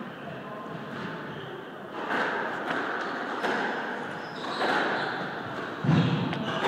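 Squash rally: the ball cracks off rackets and the court walls about once a second from a couple of seconds in, with a heavier thud near the end, and the players move about on the wooden floor.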